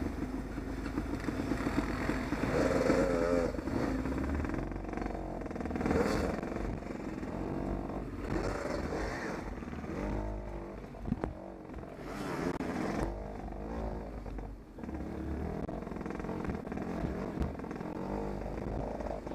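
Off-road motorcycle engines running and revving, the pitch rising and falling again and again.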